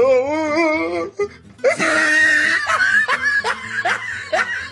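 Laughter over music: a wavering laugh in the first second, then about a second later a denser stretch of repeated laughing strokes with music.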